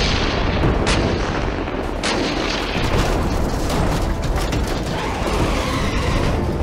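Cannon-fire and explosion sound effects: three booming blasts about a second apart, the first at the start, followed by steady noise.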